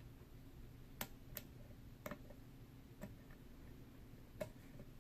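Faint, scattered metallic clicks of a hook pick working the pin stacks of a Yale & Towne safe deposit box lock, about five sharp ticks spread out, the sharpest near the end.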